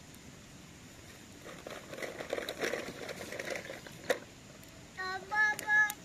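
A young child's voice makes short high-pitched vocal sounds near the end. Before that there is a soft crackling rustle, with one sharp snap about four seconds in.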